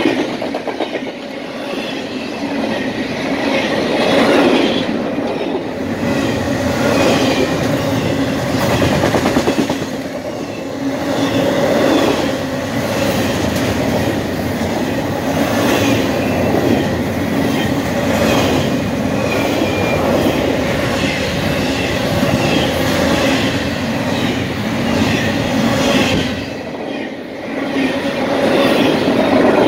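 Double-stack intermodal well cars rolling past: a steady rumble of steel wheels on rail with rhythmic clicking as the wheels cross rail joints, the loudness dipping briefly now and then between passing cars.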